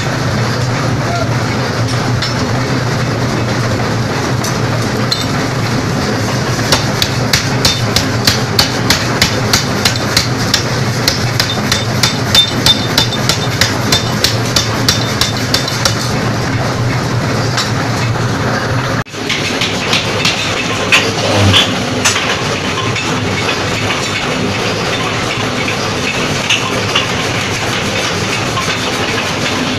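Power hammer forging a red-hot steel spindle billet held in tongs: rapid, regular blows about two to three a second over the machine's steady drone. The blows stop about two-thirds of the way through, leaving the running machinery and a few metal clanks.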